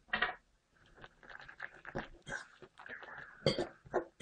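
A utensil stirring sliced potatoes, chorizo, onion and green pepper into beaten egg in a glass bowl: irregular wet squelches and scrapes against the glass, after one short louder sound at the very start.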